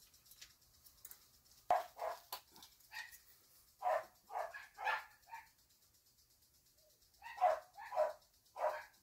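A dog barking: short single barks in three runs of three or four, with a pause of about two seconds before the last run.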